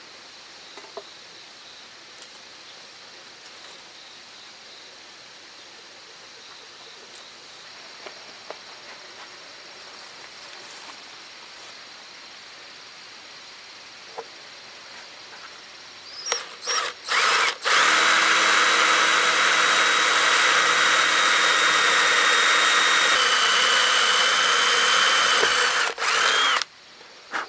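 A cordless drill boring through a wooden board: after a long quiet stretch it starts with a few short trigger pulls, then runs steadily for about eight seconds, its pitch dropping a little partway through, and ends with one more short burst. The bit is cutting hard enough to scorch the wood and send up smoke.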